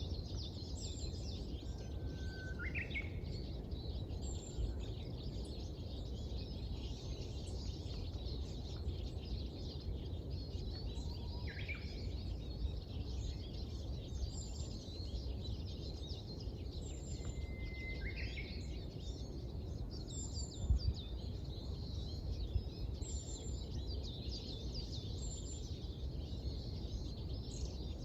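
Many small birds chirping and singing in a dawn chorus, with a few clearer whistled calls standing out three times, over a steady low background rumble.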